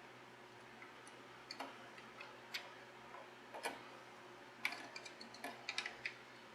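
Light, irregular clicks and taps from small hardware being handled. At first they come about once a second, then more often in the last two seconds.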